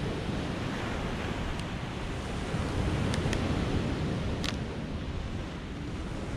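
Small sea waves breaking and washing up a sandy, pebbly shore in a steady rush of surf, with wind rumbling on the microphone.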